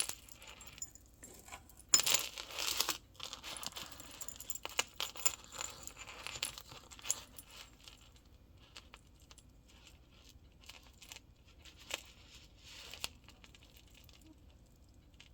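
Metal necklace chains and small beads clinking and jingling as a multi-strand necklace is handled, with a louder rattle about two seconds in and steady clicking for several seconds, then only an occasional click.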